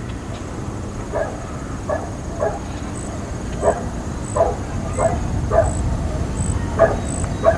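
A dog barking in the distance: short single barks at irregular intervals, about nine in all, over a steady low background rumble.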